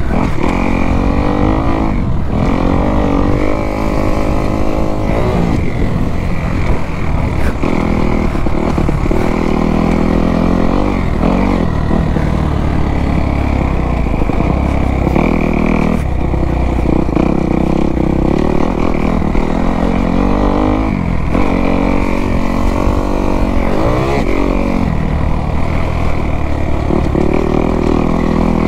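Kawasaki KX250 dirt bike engine ridden hard, its revs climbing and falling off every couple of seconds as the throttle is opened, shifted and chopped.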